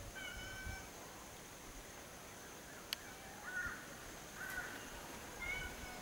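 Indian grey hornbill giving short, high calls four times: a clear held call near the start, two rougher ones in the middle and another near the end. A single sharp click comes about three seconds in.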